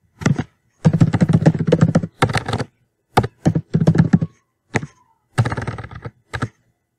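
Computer keyboard typing in several quick bursts of loud keystrokes, with short pauses between the bursts.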